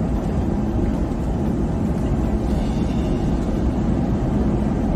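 Steady rumble and rush of air on the flight deck of an Airbus A340-300 on final approach: airflow and engine noise in the cockpit.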